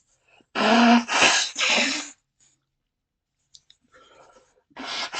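A man blowing his nose hard, three forceful blasts in a row, then a second run of three blasts near the end.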